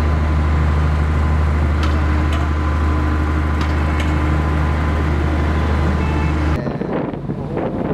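Heavy construction machinery running with a steady low drone and a few light clicks. The drone cuts off abruptly about six and a half seconds in, replaced by wind buffeting the microphone.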